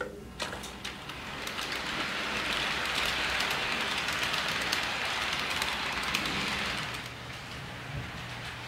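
HO scale freight cars rolling along Kato Unitrack: a steady rushing wheel-on-rail sound that swells about two seconds in and fades near the end, with a few faint clicks at the start.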